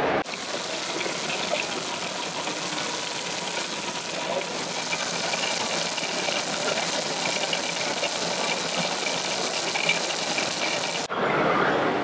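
Crowd hubbub in a busy exhibition hall: many people talking at once under a steady wash of noise. The sound changes abruptly shortly after the start and about a second before the end.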